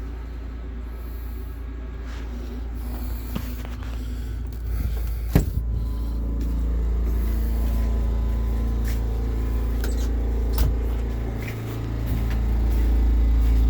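Chinese 8 kW diesel air heater running on low, a steady low mechanical hum, with a sharp knock about a third of the way through and a fainter one later.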